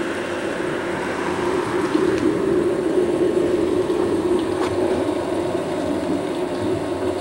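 Thunderstorm sound effect from a Halloween lightning-storm sound-and-light controller: a steady rumbling hiss with no distinct thunderclap.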